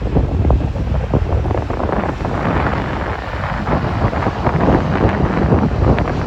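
Strong wind buffeting the microphone, a gusty, crackling rumble.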